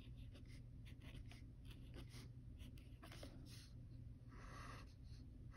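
A pen writing letters on paper: a run of short, faint scratching strokes, one after another.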